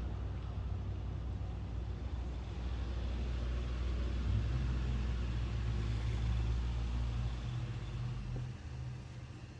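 A low rumbling drone from the sky, a deep steady hum with a second, slightly higher hum joining about four seconds in; it eases off after about eight seconds.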